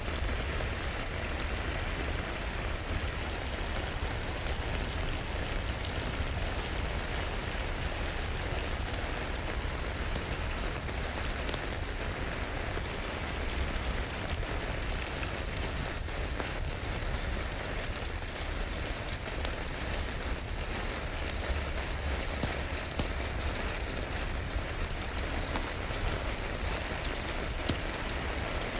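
Steady rain on a surface, with a fire crackling in small, scattered pops and a low rumble underneath.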